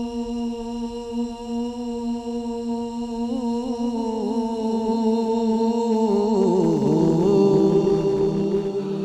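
A man singing Punjabi Sufi verse into a microphone: one long steady held note, which about three seconds in starts to waver and then breaks into ornamented, sliding melodic turns that grow louder toward the end.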